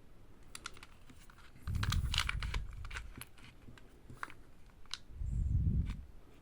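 Airsoft pistols being handled and shifted about on a surface: a scatter of light plastic-and-metal clicks and knocks, with two spells of heavier low handling noise, about two seconds in and again near the end.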